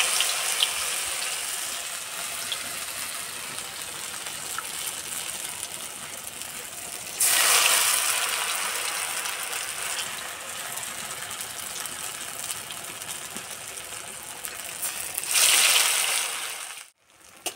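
Batter-coated pieces of wheat-flour dough deep-frying in hot oil in a steel kadai: a steady crackling sizzle that swells loudly twice, about seven and fifteen seconds in, as fresh pieces are dropped into the oil, easing off after each.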